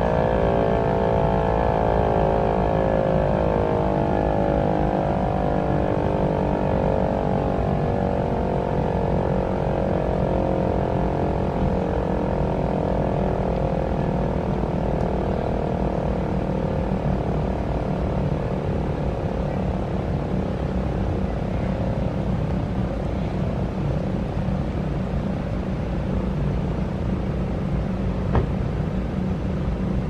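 American Signal T-121 outdoor warning siren winding down: its chord of tones slides slowly lower and fades away over roughly the first ten seconds, leaving a steady low rumble. A single sharp click comes near the end.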